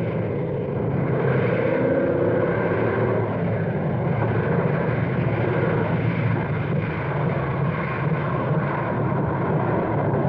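Propeller aircraft engines droning steadily, with a brief wavering in pitch about a second in.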